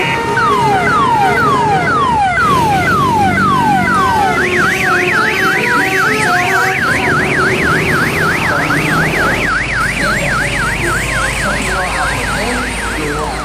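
Vehicle electronic siren horn, of the kind fitted to Indonesian tourist buses and odong-odong trains: first about eight falling wails in quick succession, then a fast up-and-down yelp of about two to three cycles a second that runs until near the end.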